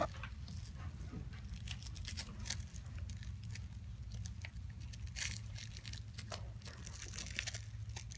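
A cat biting, chewing and clawing at a small toy: scattered soft crinkles, crunches and scratches, with a sharp tap right at the start and a steady low hum underneath.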